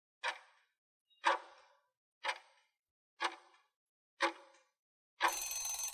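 Countdown-timer sound effect: five sharp ticks one second apart, then a short alarm sound near the end as the time runs out.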